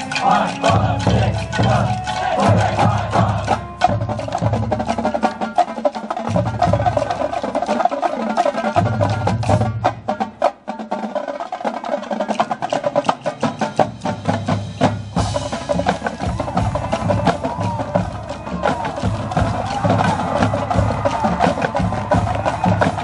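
High school marching band playing its field show, with sharp percussion strokes over low sustained notes. About ten seconds in the low notes drop out while the percussion keeps going, then the full band comes back in around fifteen seconds.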